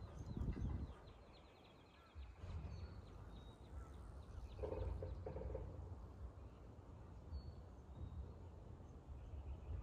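Outdoor ambience: scattered bird chirps and a rapid trill over a low, steady rumble, with two short pitched calls about halfway through.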